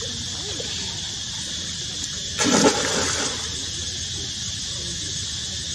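Macaque splashing in a shallow pool of water: one brief burst of splashing about two and a half seconds in, lasting under a second, over a steady high background hum.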